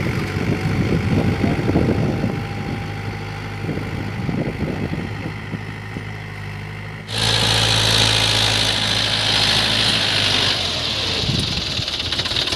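Mahindra 575 DI tractor's four-cylinder diesel engine running steadily while it pulls a seed drill through tilled soil. About seven seconds in, the sound jumps to a closer, louder engine with a strong hiss.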